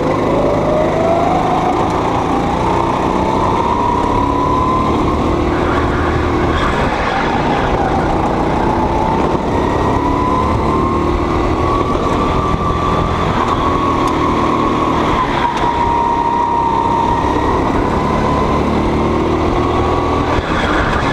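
Go-kart engine heard from the driver's seat during a lap, its pitch climbing as the kart accelerates at the start, then dropping and rising again twice as it slows for and powers out of corners.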